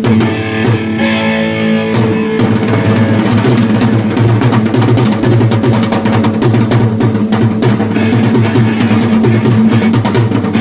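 Rock band playing: drum kit, electric guitar and bass guitar, with the full band coming in about two seconds in.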